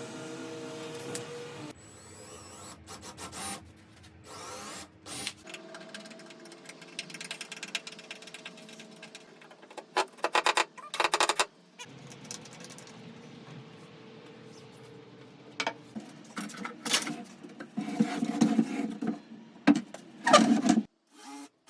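Workshop assembly sounds: short runs of a power drill or driver, with clicks and knocks of wood and hardware being handled. They come in separate bits with abrupt changes between them, and the knocking is loudest near the end.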